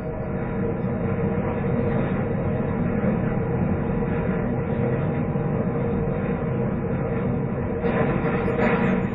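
Ship-to-shore container crane machinery running during a container lift: a steady mechanical drone with a held tone, swelling over the first second, with a little rattling near the end.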